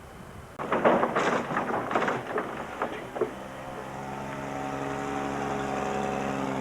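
A few seconds of clattering knocks, then a steady engine drone that slowly grows louder.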